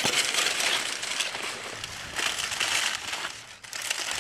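Dry, dead corn leaves and stalks rustling and crackling as a person pushes through a cornfield row on foot, with a dip near the end before the crackling picks up again.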